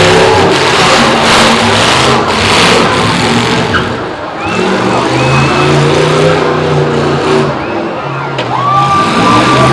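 Demolition derby cars' engines running loud and revving, rising and falling, as the cars move around the track. A high whistle-like tone comes in near the end.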